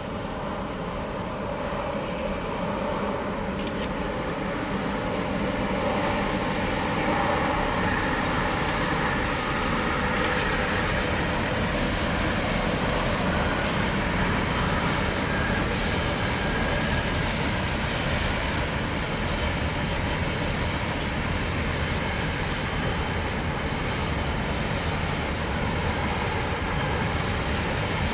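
KiwiRail diesel locomotive hauling a long container freight train past, its engine running under load and the wagons rumbling steadily along the track. The engine's tone fades after about ten seconds, leaving the rolling noise of the wagons.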